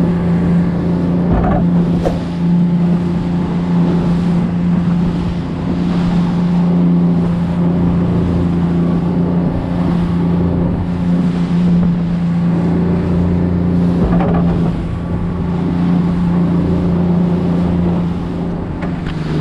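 Sportfishing boat's engine running steadily, a constant low drone over a steady hiss of wind and water.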